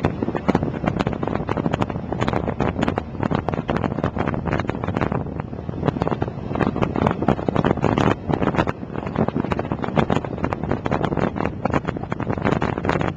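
Heavy, gusty wind buffeting the microphone of a camera on a motorcycle at highway speed, over the noise of the moving bike.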